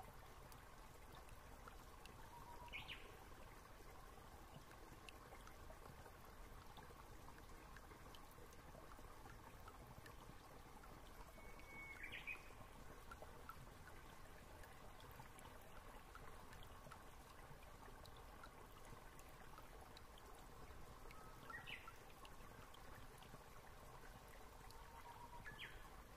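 Near silence: faint steady hiss of the recording's noise floor, with a few brief, faint high blips.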